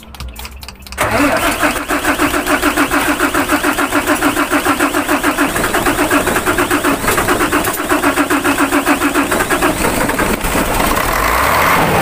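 Mitsubishi Fuso 6D24 straight-six diesel being cranked by its starter, with a steady rapid pulsing, after the fuel system has been bled to cure hard starting and with the accelerator held down. About ten seconds in the pulsing gives way to a steadier, louder running sound as the engine catches.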